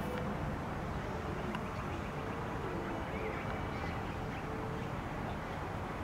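Steady low outdoor background rumble, with a faint on-and-off hum and a few faint bird chirps.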